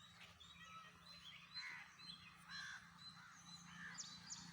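Faint birds chirping and calling, many short scattered calls, over a low steady hum.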